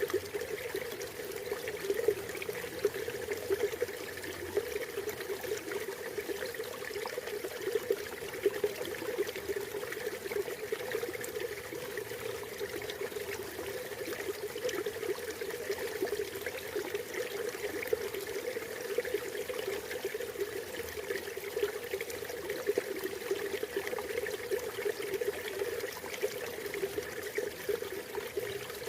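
River water flowing and trickling steadily, an even, unbroken rush.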